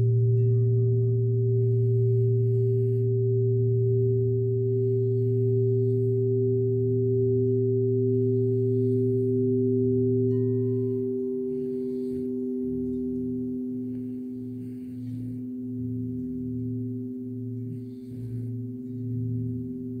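Crystal singing bowl ringing steadily, several pure tones held together. From about halfway the lowest tone starts to pulse and waver.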